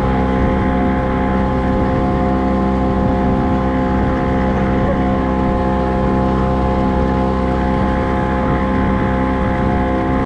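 Boat motor running steadily at an unchanging engine speed, a constant hum with a mechanical drone.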